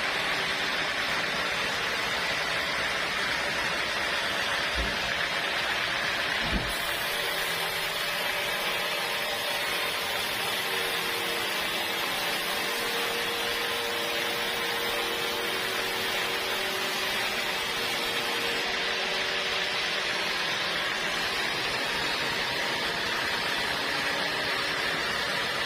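Sawmill saw running, a steady, even mechanical hiss, with two brief low knocks at about five and six and a half seconds.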